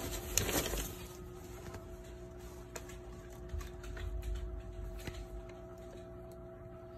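Newspaper packing and plastic fish bags crinkling as they are handled, loudest in the first second, then only faint scattered clicks and rustles over a steady faint hum.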